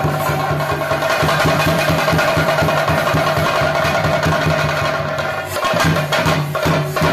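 Theyyam percussion: chenda drums beaten in a fast, dense roll under a steady, sustained high tone, the drumming thinning briefly about two-thirds of the way through before picking up again.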